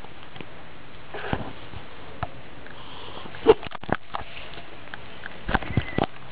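A cat sniffing close to the microphone: a handful of short, sharp sniffs, the loudest about halfway through and several more near the end.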